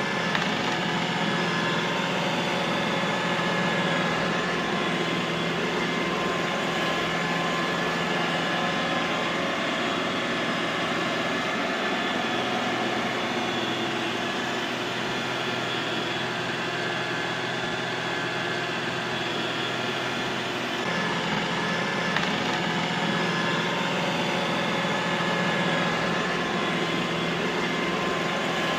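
Robot vacuum cleaner running: a steady motor-and-fan whir with a few constant tones over a hiss, shifting slightly in tone about three-quarters of the way through.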